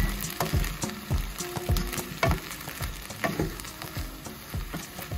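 Pinto beans, green chilies and taco seasoning sizzling in a skillet of sautéed peppers and onions while a spoon stirs them, with irregular scrapes and clicks of the spoon against the pan.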